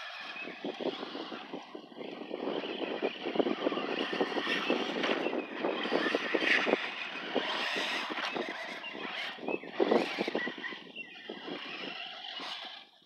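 Traxxas Slash radio-controlled short-course trucks running on a dirt track: a gritty clatter of tyres and drivetrain that swells and fades as they pass, loudest about ten seconds in and dying away near the end.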